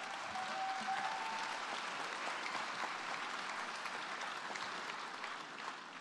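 Audience applauding, a dense steady clatter of many hands that eases off near the end.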